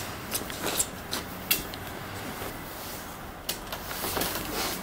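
Scattered sharp clicks and light knocks with some rustling: hands working on a mountain bike in a repair stand.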